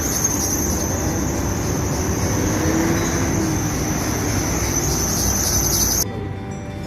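Steady outdoor roar of wind and passing road traffic in a sandstorm, with a high hiss on top. It cuts off abruptly about six seconds in.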